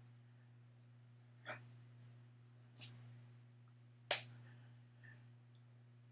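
A steady low electrical hum, broken by four short, sharp breathy noises about a second apart; the one about four seconds in is the loudest.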